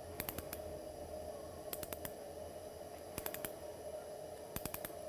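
Hand torque ratchet for dental implants clicking in quick runs of three or four clicks, four times, about a second and a half apart, as it turns the implant into the jawbone.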